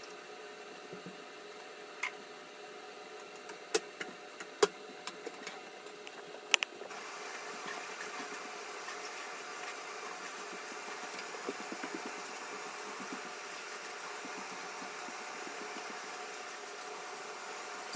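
A toilet being cleaned: a few sharp knocks and clicks, then a steady hiss that sets in about seven seconds in.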